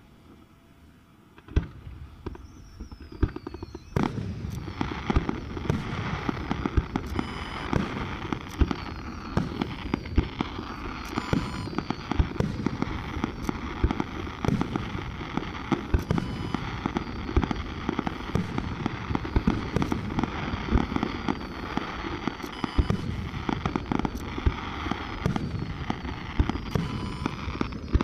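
Fireworks display: after a quiet moment come a few single bangs and a short falling whistle. Then, from about four seconds in, a dense, continuous barrage of aerial shell bursts and crackling.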